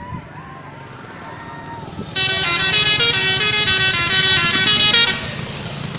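Tour bus's musical 'telolet' horn playing a short tune of stepped notes, starting about two seconds in and stopping after about three seconds, with engine and traffic noise underneath.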